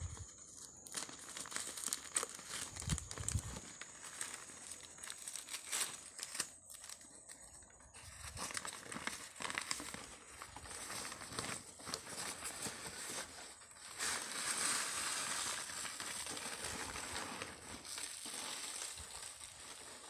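Newspaper and tissue-paper wrapping crinkling and crumpling in irregular crackles as it is pulled off a packed plant, with a denser, louder stretch of rustling past the middle.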